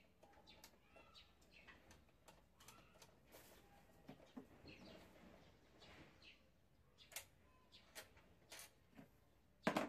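Faint, scattered clicks of a socket ratchet working the throttle body's mounting nuts, with one louder sharp metallic clack near the end.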